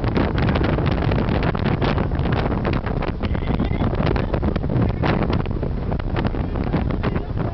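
Wind buffeting the microphone in irregular gusts over the steady rumble of a car driving at highway speed.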